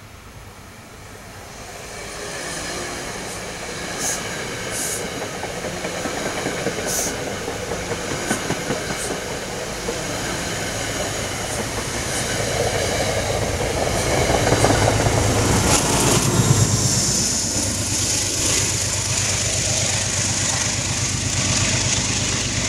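Metro-North push-pull passenger train approaching and passing at speed, cab car first. The rush of steel wheels on rail grows quickly and is broken by sharp clicks over rail joints. About two-thirds through, a deeper rumble builds as the diesel locomotive pushing at the rear goes by.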